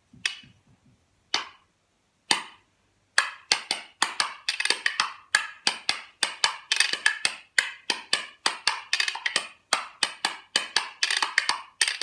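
Pair of maple-wood spoons played as percussion: three single clacks about a second apart, then from about three seconds in a steady, fast rhythm of clacks.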